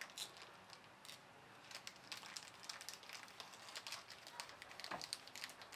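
Faint scattered clicks and taps of small items handled on a tabletop, over quiet background noise, with one sharper click about five seconds in.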